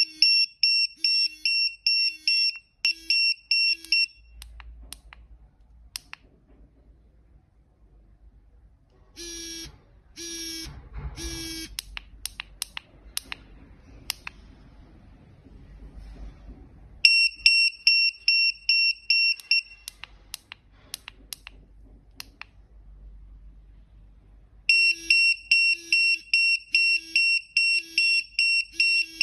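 Bedwetting (enuresis) alarm sounding its high-pitched, rapid electronic beeping, the signal that its moisture sensor has detected wetness. It beeps in bursts that stop and start again, with three longer, different tones around ten seconds in and scattered clicks in the pauses.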